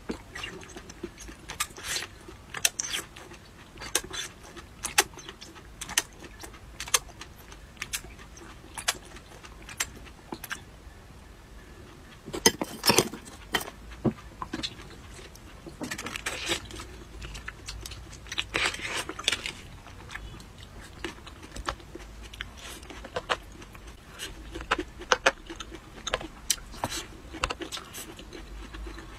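Close-miked eating sounds: a steady run of sharp, clicky crunches and chews, with denser bouts of crunching about halfway through.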